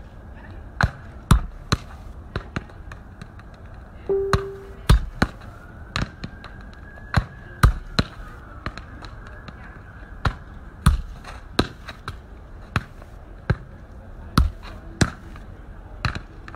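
A football being kicked and bounced on paving stones: sharp, irregular thuds of foot on ball and ball on pavement, one every half second to a second or so.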